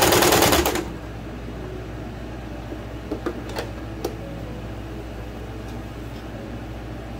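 Electric sewing machine stitching at speed, stopping under a second in. After that a faint steady hum remains, with a few light clicks.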